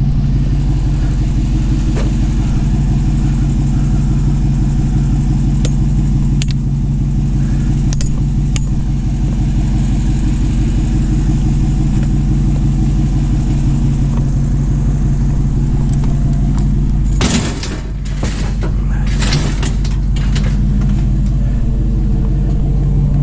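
Vehicle engine running steadily while driving, heard from inside the cab. About seventeen seconds in the hum drops briefly and a short run of clattering knocks sounds.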